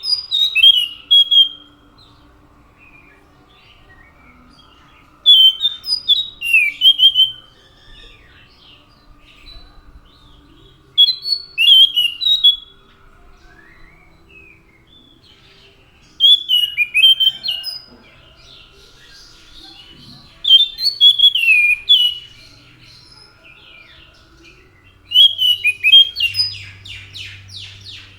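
Anis macan (scaly thrush) singing: short phrases of quick, high whistled notes, one phrase roughly every five seconds, with pauses between. A faint steady hum runs underneath.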